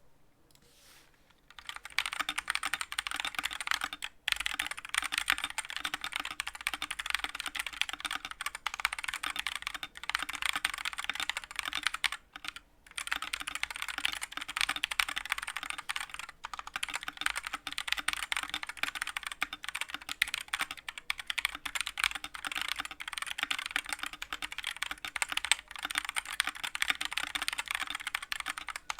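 Dierya x Kemove DK61 60% mechanical keyboard with Gateron Optical Brown tactile switches and stock PBT keycaps being typed on quickly: a steady stream of key clacks that starts about two seconds in, breaking off briefly twice.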